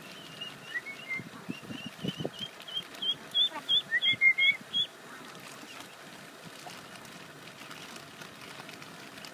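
Eastern spot-billed ducklings peeping: a run of short, high peeps, about two a second. They grow louder about three seconds in and stop about halfway through.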